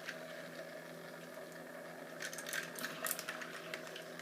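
Small electric motor of a tornado-maker gadget humming steadily, with a run of light clicks and rattles about two seconds in.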